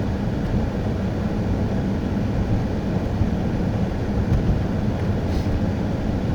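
Steady low rumble of a Pontiac Grand Prix driving on a slushy winter road, engine and tyre noise heard from inside the cabin.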